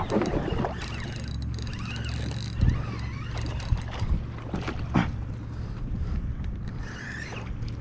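Wind buffeting the microphone with a steady low rumble, broken by two sharp knocks about three and five seconds in.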